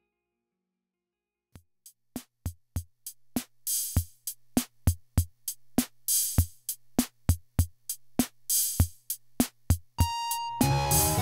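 Music: after about a second and a half of silence, a steady electronic drum beat starts over a low held bass note. Near the end a high synth note sounds and the full track comes in with bass and chords.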